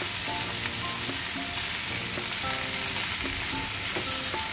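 Shredded cabbage, carrot and bell pepper strips sizzling steadily in a frying pan while a plastic spatula stirs and tosses them.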